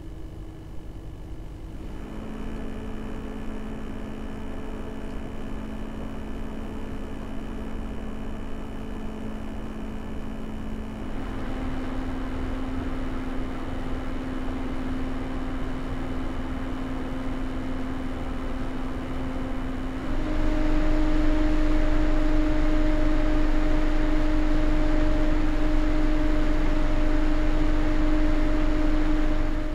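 CPU cooler fan running at steady speeds that step up three times, about 2, 11 and 20 seconds in. Each step makes the rush of air louder and raises the pitch of its steady hum, and the last speed is the loudest.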